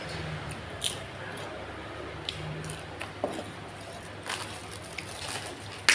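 Eating sounds from a bowl of nam tok noodle soup: chewing and mouth smacks with scattered short clicks, about one every second.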